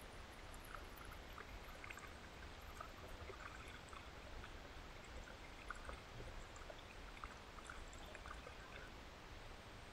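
Faint outdoor ambience at the edge of a pond: a steady low rumble with scattered faint high ticks, and no clear single source.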